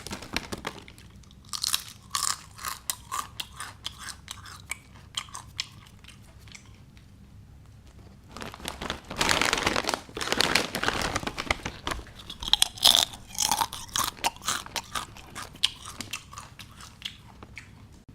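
Potato chips being bitten and chewed: crisp crunches in irregular runs, with a denser, louder stretch of crackling around the middle.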